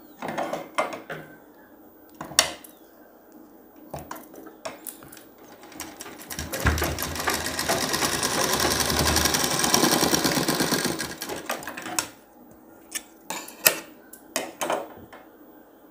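Light clicks and fabric handling, then a domestic straight-stitch sewing machine runs for about five seconds with a fast, even stitching rhythm, sewing a diagonal seam through folded fabric. A few sharp clicks follow near the end as the work comes out from under the presser foot.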